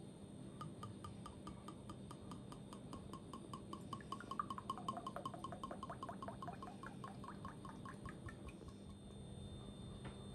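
Cooking oil glugging out of a narrow-necked glass bottle into a ceramic mug: a quick, even run of glugs, about six a second, that stops about nine seconds in.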